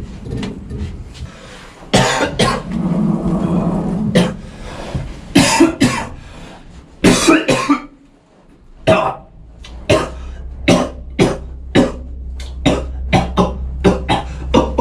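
Coughing and throat clearing: scattered coughs at first, then from about nine seconds in a quick, even run of short coughs, about two a second, in rhythm. A low steady hum joins about ten seconds in.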